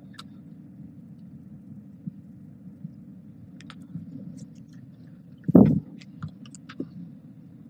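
Steady low room hum with faint scattered clicks, and one short thump about five and a half seconds in.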